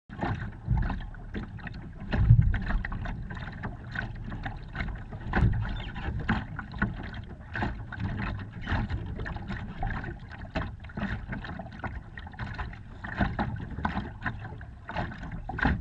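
Water slapping and splashing irregularly against the bow of a Laser sailing dinghy under way. Gusts of wind buffet the microphone now and then, loudest about two seconds in.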